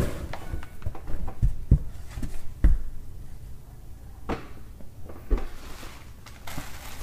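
Handling noise on a tabletop: a few dull knocks and bumps with light paper rustling as a magazine is moved and stood upright close to the microphone.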